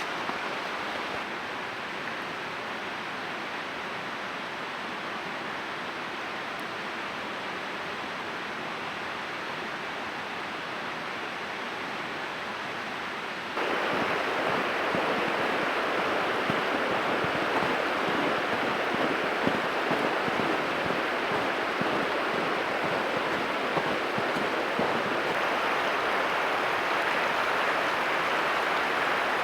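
Steady rushing of flowing water, like a stream, with no distinct events. About halfway through it steps up abruptly to a louder, fuller rush.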